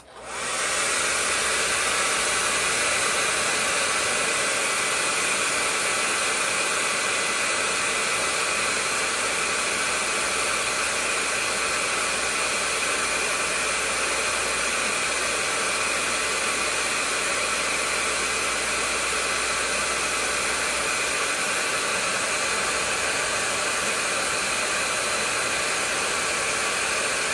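Hair dryer switched on and running steadily on one even setting, blowing hot air onto a lithium battery's BMS temperature sensor to trip its high-temperature cutoff.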